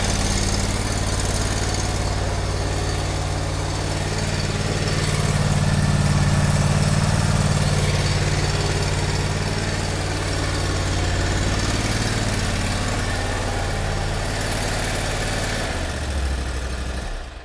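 eXmark lawnmower engine running steadily, sounding a whole lot better now that the dry-bearing noise from the belt drive has been fixed. The sound cuts off abruptly near the end.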